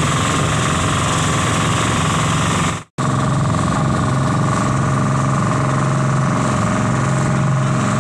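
Engine of a motorised outrigger bangka running steadily underway, loud and close with an even low hum. The sound drops out for an instant about three seconds in, then carries on unchanged.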